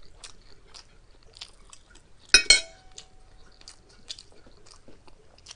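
Soft chewing and mouth clicks, and about two and a half seconds in a metal fork is set down on a plate: two sharp clinks with a short ring.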